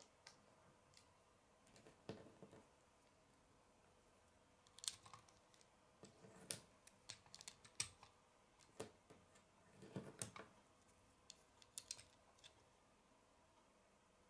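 LEGO plastic bricks being handled and pressed together: quiet, scattered sharp clicks and taps, some in quick clusters.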